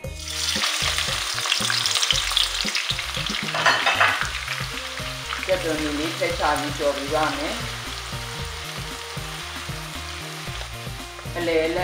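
Sliced raw onions deep-frying in hot oil in a wok, a loud sizzle that starts suddenly as they go in and eases a little after about four seconds, with a silicone spatula stirring through them.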